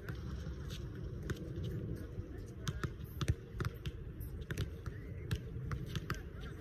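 Basketballs bouncing on an outdoor court: irregular sharp thumps, about two a second, over a steady low rumble.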